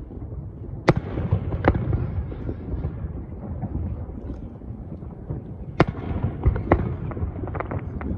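Aerial firework shells bursting: two sharp bangs about a second in, two more around six to seven seconds, then a quick run of smaller crackling pops near the end, over a steady low rumble.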